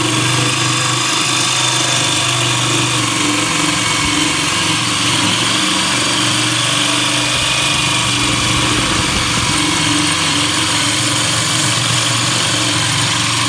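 Power drill running a 1¼-inch diamond hole saw, cutting steadily into granite near the end of the cut.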